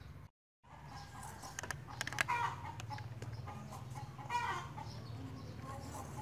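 Chickens clucking, with two louder calls about two and four seconds in, over the short scraping clicks of a vegetable peeler stripping the skin from a wax gourd. A steady low hum runs underneath.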